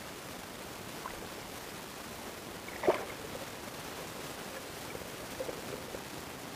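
Sea water sloshing and splashing around a waterproof action-camera housing as it moves at and under the surface, over a steady hiss, with one sharper splash about three seconds in.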